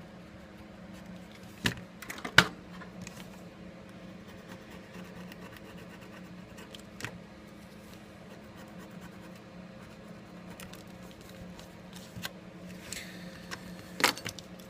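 Small hand tools scratching and clicking against a smartphone's frame during a screen repair, with a few sharp clicks about two seconds in and near the end, over a steady low hum.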